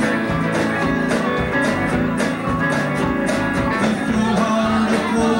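Live band music: a strummed acoustic guitar played with an electric guitar.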